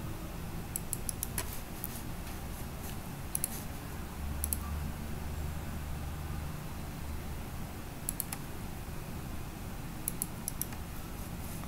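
Computer mouse clicking in short bunches of sharp clicks a few times, as points are placed to draw a curve, over a steady low hum.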